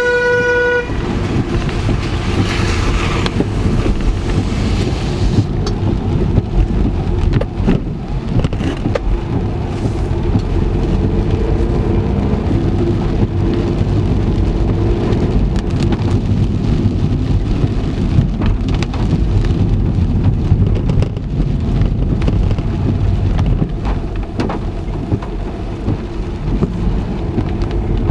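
Car driving in heavy rain, heard from inside: a steady low road and engine rumble with rain noise on the car. A car horn toots briefly right at the start.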